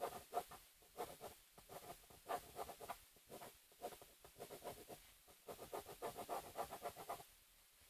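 Pen scratching across cardboard in quick runs of short sketching strokes, stopping about seven seconds in.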